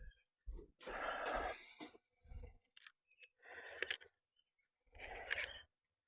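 Faint food-prep handling: four short scraping, snipping sounds about a second apart, with a few small clicks between them.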